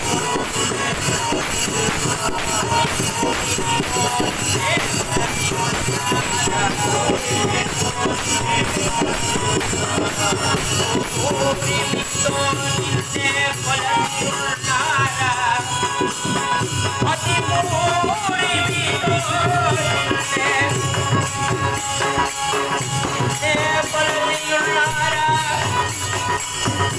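Devotional group singing (bhajan) with a harmonium and small hand cymbals keeping a steady jingling beat.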